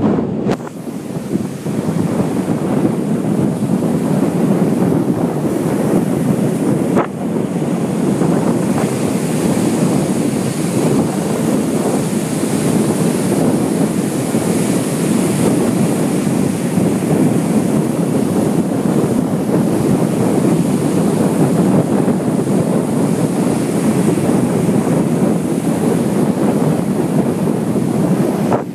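Strong wind blowing across the microphone as a steady rough noise, over the wash of surf breaking on the beach.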